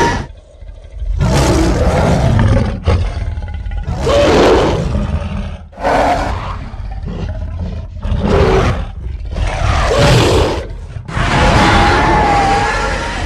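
A run of loud creature roars used as monster sound effects, about six or seven separate roars of a second or two each, with short gaps between.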